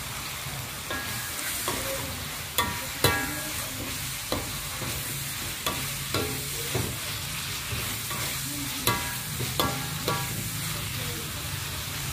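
Pork belly stir-fry sizzling in a steel wok while a metal ladle stirs it, clanking and scraping against the wok at irregular intervals, some strikes ringing briefly.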